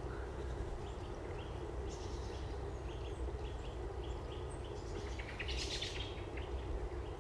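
Small woodland birds calling: short high chirps repeated every half second or so, with a denser flurry of calls a little past the middle, over a steady low background rumble.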